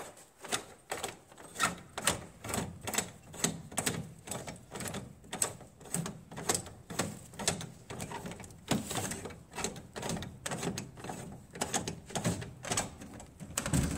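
T-handle on an old soda vending machine's door being unscrewed by hand, clicking steadily about two or three times a second as it turns.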